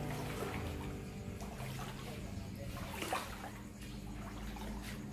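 Floodwater sloshing and splashing as someone wades through a flooded room, over a low steady hum.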